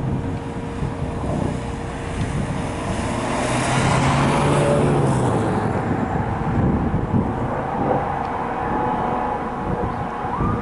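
Road traffic with a motor vehicle passing close by; its engine and tyre noise swells to its loudest about four seconds in. Just before the end an emergency vehicle's siren starts to wind up, rising in pitch.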